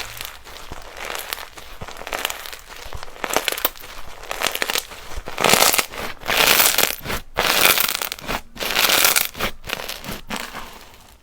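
Slime being squeezed and pressed by hand, giving a dense crackle that swells into several loud pushes of about a second each, with short breaks between them.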